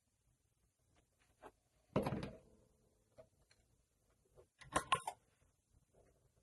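Small tools and metal parts being handled on a workbench during cleanup of a flashlight head: a sharp knock about two seconds in that rings briefly, then a quick cluster of clicks near the end, with a few faint ticks between.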